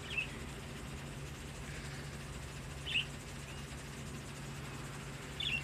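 Wild birds from a visiting flock giving three short, high calls, one near the start, one about 3 seconds in and one near the end.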